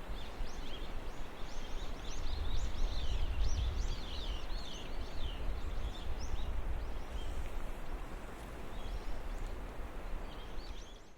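A songbird singing quick runs of short, arching whistled notes over the steady rush of a river, with a low rumble underneath. The song comes in two bouts, the second fainter.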